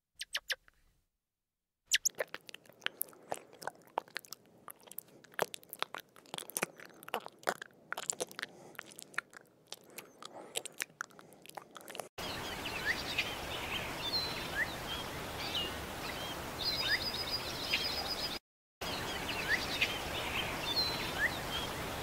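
An animal chewing crunchy food: a quick, irregular run of crisp crunches. After a cut about halfway through, small birds chirp over a steady background hiss, with a brief break near the end.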